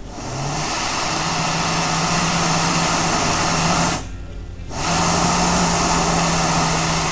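Ultralight canister gas stove burning with a steady hiss, its valve only part-way open. The hiss grows over the first second, drops away briefly about four seconds in, then comes back at full level.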